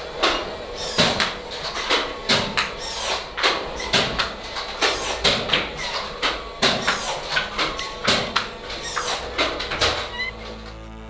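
Irregular run of sharp mechanical clicks and knocks, about two or three a second, over a low hum, with a faint whine now and then: the sound of a robot arm's servos and joints and its hand-held puppeteering rig being moved.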